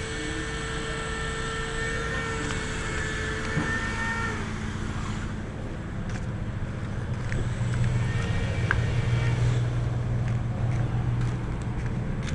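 Compressor running with a steady, continuous buzz. A higher steady whine stops about four seconds in, and the low hum grows louder in the second half.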